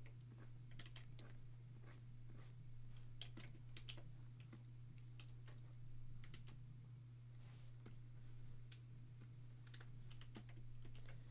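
Faint, irregular clicking of computer keyboard keys and a drawing stylus tapping a tablet, over a steady low electrical hum.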